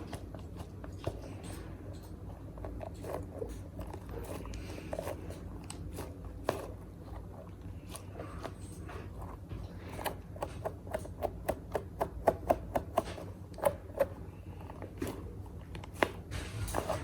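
Slime being handled up close: soft scraping and crackling, with a quick run of small sharp clicks and pops in the second half.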